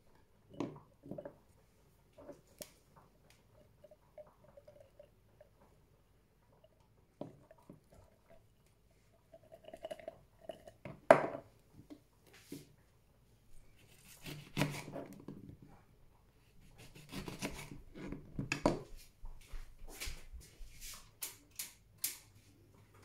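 A kitchen knife and ingredients being handled on a plastic cutting board: scattered knocks and clicks, with one sharp knock about eleven seconds in and busier clusters of clicks in the second half.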